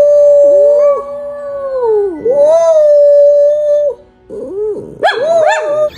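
Small dog howling: long, steady held notes through the first four seconds, then a few short wavering yips near the end.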